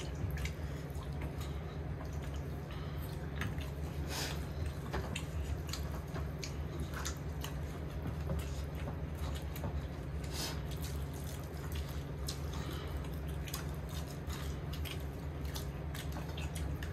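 People eating at a table: wet chewing and mouth sounds with many small scattered clicks, over a steady low hum.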